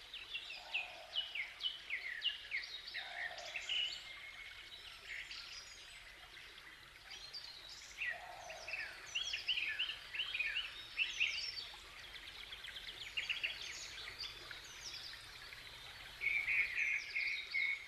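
Wild birds chirping and twittering in natural ambience, with many short, quick calls throughout, a few softer low calls, and a run of rapid repeated chirps near the end.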